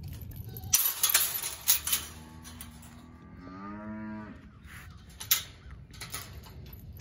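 A cow moos once, a single call of about two seconds starting a little over two seconds in. Several sharp clicks and knocks come just before it and one more after it.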